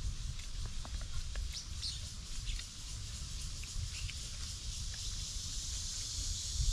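A few short, high bird chirps over a steady high drone of insects that swells after a few seconds, with a constant low rumble beneath.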